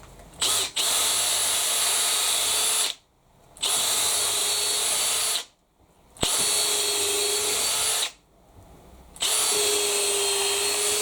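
Makita XPH06 brushless cordless drill, in drill mode, boring a 3.5 mm hole through 180 mm-thick Vitex hardwood at a steady speed. After a brief blip it runs in four bursts of about two seconds, stopping three times in between as the bit is pulled out, since Vitex jams up the drill bit's flutes.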